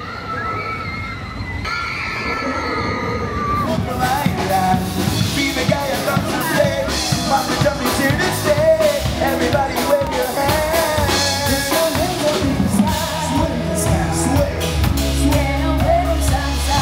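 Live band with a singer and drum kit playing dance music; the music turns fuller about three and a half seconds in.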